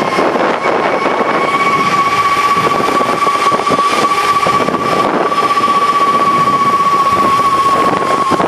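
Zipline trolley pulleys running along the steel cable, giving a steady high whine over a continuous rushing noise.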